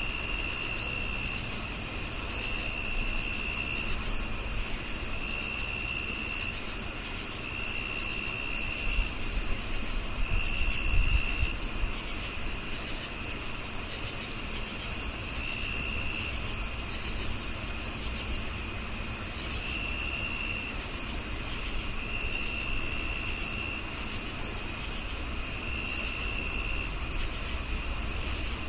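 Several crickets chirping together. One gives a continuous high trill, another a regular chirp about twice a second, and a third a lower trill in roughly one-second bursts every couple of seconds, over a faint low rumble.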